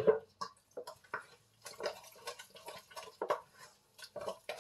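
A hand squishing and mixing wet coconut cake batter of grated coconut, flour and water in a stainless steel bowl: irregular wet squelches and small knocks against the metal. A single thump right at the start.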